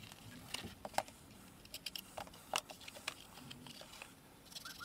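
Utility knife cutting through the tape on a folded cardboard template, with the cardboard being handled and unfolded: faint, irregular clicks and scrapes.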